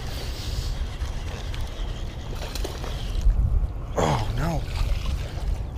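A hooked largemouth bass splashing and thrashing at the surface by the bank as it is reeled in, over a steady rumble of wind on the microphone. A short wavering vocal exclamation about four seconds in.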